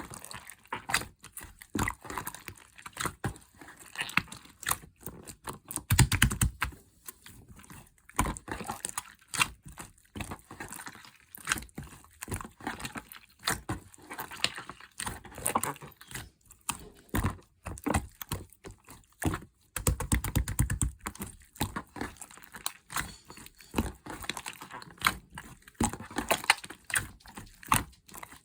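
Slime being squished, stretched and pressed by hand, giving a stream of sticky clicks and crackling pops, with fast runs of clicks about six seconds in and again near twenty seconds.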